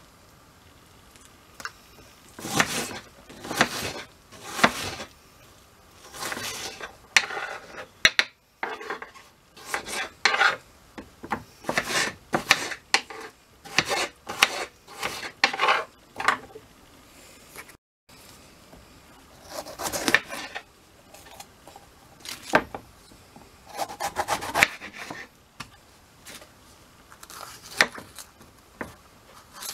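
Kitchen knife cutting an onion on a wooden cutting board: repeated slicing strokes through the onion that end on the board, coming in runs with short pauses between.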